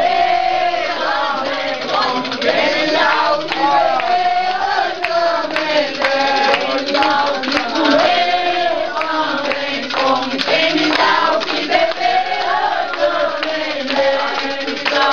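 A group of voices singing an Umbanda ritual chant (ponto) together, accompanied by hand clapping.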